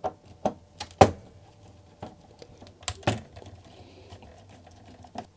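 Irregular clicks and knocks of a screwdriver and hands working on the metal and plastic parts of an opened dot matrix printer, about half a dozen sharp taps with the loudest about a second in.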